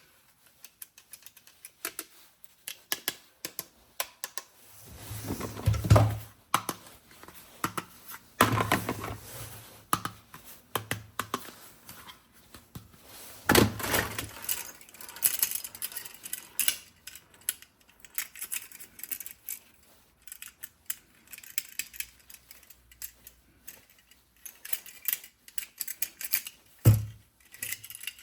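Small hard objects being handled, with a steady run of light clicks and rattles. A few louder knocks and thumps fall about five seconds in, around eight and thirteen seconds, and again near the end.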